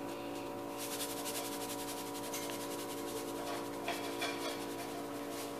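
Salt being shaken from a canister into a pan of tomato sauce, a faint steady hiss, over a steady hum.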